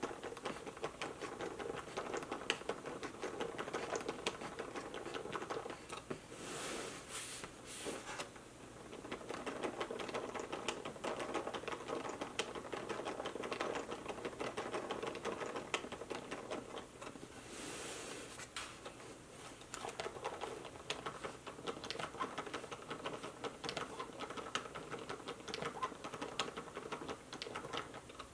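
Hand-cranked LEGO koi fish mechanism: plastic gears and bricks clicking and clattering rapidly and continuously as the crank is turned, with a brief rustle twice.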